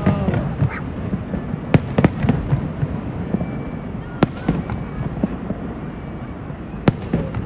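New Year fireworks going off: about five sharp bangs stand out, the first three close together about two seconds in, another near the middle and one near the end, over a continuous crackle of more fireworks.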